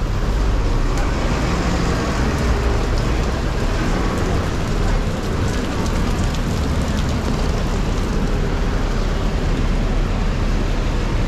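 Steady rain mixed with city traffic on a wet road, a continuous even noise with a low rumble underneath.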